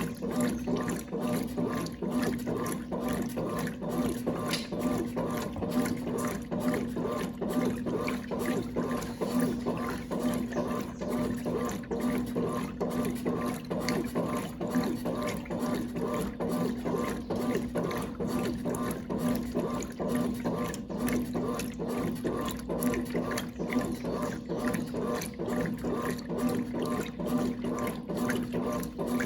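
Brastemp Clean 5 kg washing machine (1996) running with water in the tub: water sloshing and running over a steady motor hum, unchanged throughout.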